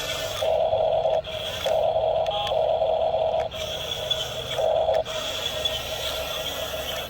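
Small electric motor of a radio-controlled model truck whining in stop-start bursts, a lower whine cutting in and out over a thinner high-pitched whine.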